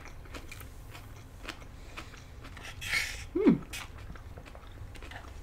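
Mouth sounds of eating: soft chewing clicks, a short airy sip of mango slush through a straw about three seconds in, then a brief falling 'mm'.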